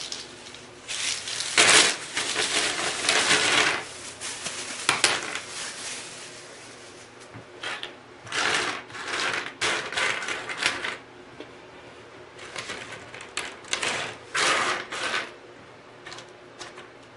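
Stripped copper wire pieces and small plastic Wago connectors handled on a work surface: irregular bursts of scratchy rubbing and rustling with small clicks, half a second to a couple of seconds each.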